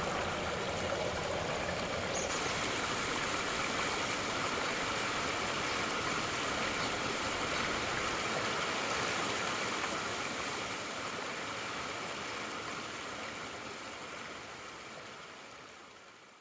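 Water of a stream babbling steadily, fading out over the last few seconds.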